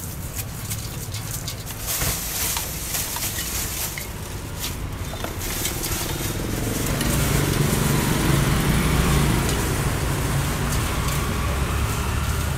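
Street traffic rumbling by, swelling to its loudest a little past halfway as a vehicle passes close. Under it come scattered light clicks and scraping from rice paper salad being mixed by hand and spoon in a steel bowl.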